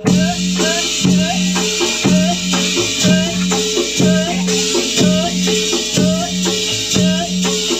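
Javanese Dongkrek percussion music with a steady beat about once a second. Each beat brings a low held tone, drum strokes and short rising pitched notes, over a constant high hiss.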